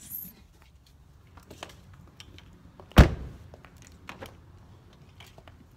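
A Genesis G80 car door shut with one solid thunk about three seconds in, with a few lighter clicks of handling and the door latch around it.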